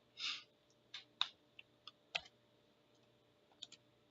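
Faint, scattered clicks of a computer keyboard and mouse, a few separate strokes spread out rather than steady typing, with a short rustle just after the start.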